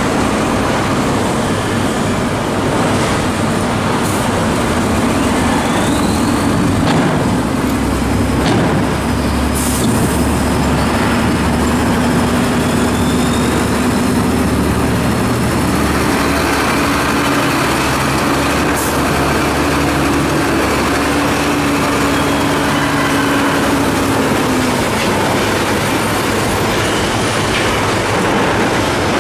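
Sinotruk HOWO dump trucks' diesel engines running loud and steady, with a few sharp knocks and clanks.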